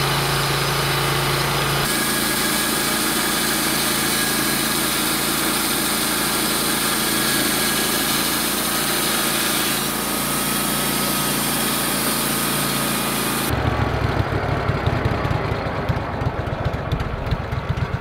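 Portable bandsaw mill's gas engine running hard as the band blade saws through a log, a steady engine sound with a high hiss over it. About three-quarters of the way through, the high hiss drops away and a lower, pulsing engine sound takes over.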